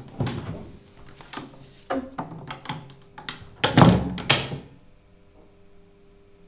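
A door being handled, followed by a run of separate knocks and thumps; the loudest cluster comes about four seconds in.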